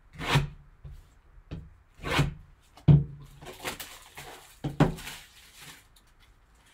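A white cardboard box handled by gloved hands: a handful of knocks as it is tipped, turned over and set down on the table, with rubbing and scuffing of card against card in between.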